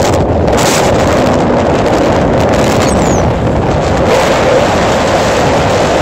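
Strong wind blowing across a phone's microphone, a loud, continuous rushing noise that grows brighter and hissier about two-thirds of the way through.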